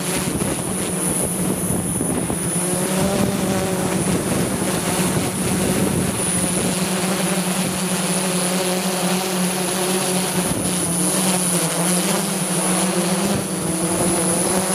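Multirotor drone's electric motors and propellers running steadily, heard from on board as a continuous hum with a thin high whine over rushing noise.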